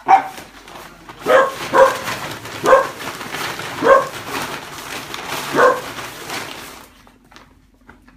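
A dog barking six times at uneven intervals over the steady crinkling of a plastic carrier bag as a small dog moves about inside it. The crinkling stops about seven seconds in.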